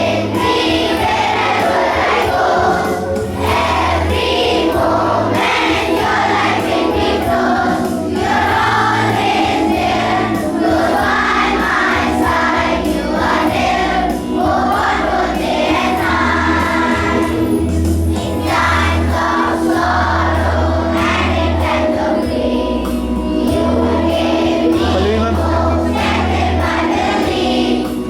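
A group of children singing together to a steady accompaniment with a bass beat.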